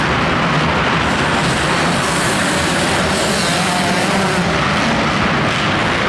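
Several motocross bikes' engines running and revving together as they race around the track, making a steady, loud wash of engine noise.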